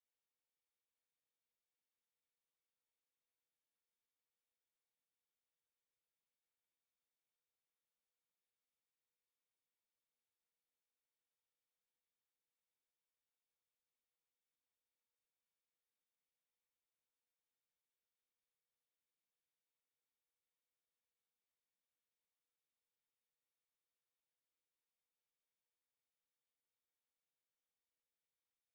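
Steady, loud 7777 Hz sine-wave test tone, a single high-pitched pure tone held without change, used to test speaker and headphone treble response.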